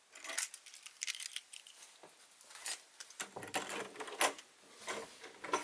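A set of keys picked up off a wooden desk, jangling and clinking in irregular bursts as they are handled, with the strongest clatters near the middle and end.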